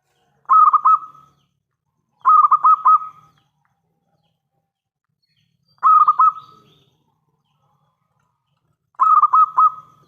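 Zebra dove (perkutut) cooing: four loud phrases a few seconds apart, each a quick run of three or four rolling coo notes.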